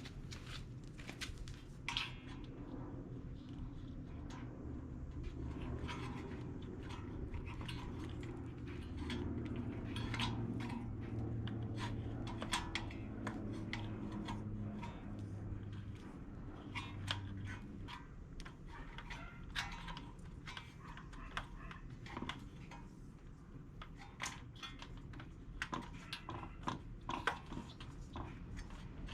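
Irregular light clicks and taps of small handling work, over a low hum with steady low tones that swell for a while in the middle.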